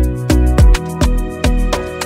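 Background music with a steady beat, about two deep thumps a second, under sustained pitched notes.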